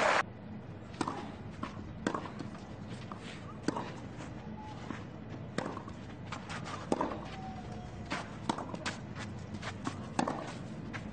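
Tennis ball bounced on the clay before a serve, then the serve and a rally: a string of sharp racket strikes and ball bounces, some a second or more apart and some in quick pairs, with light footsteps on the clay.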